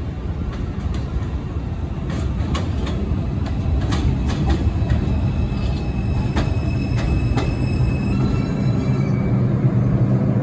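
New York City subway train running through the station, with a heavy low rumble and repeated sharp clacks of the wheels over the rail joints. A thin high whine from the wheels or motors comes in about halfway through and fades near the end.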